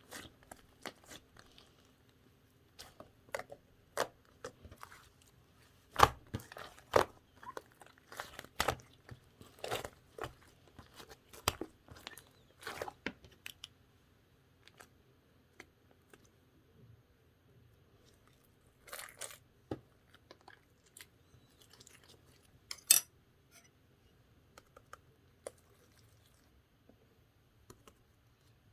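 Slime being squeezed and poked by hand, making irregular sticky clicks and pops, frequent at first and sparser after the middle, with a short crackly stretch and then a sharp pop late on.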